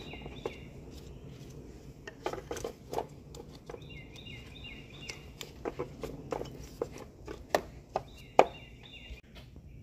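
Irregular plastic clicks and knocks as ignition coil packs are pushed down onto the spark plugs of a 2.4-litre four-cylinder engine and their wiring connectors snapped back on, with one sharper click near the end.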